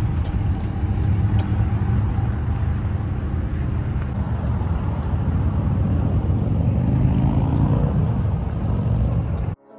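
Outdoor road traffic noise with a heavy low rumble, cutting off suddenly near the end.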